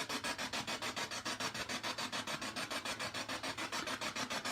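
SB7 spirit box sweeping through radio frequencies: a choppy static hiss pulsing about eight times a second.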